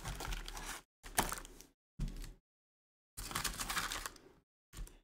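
Hands handling Topps Chrome trading cards and packs, the card stock rustling and sliding in several short bursts with silent gaps between them.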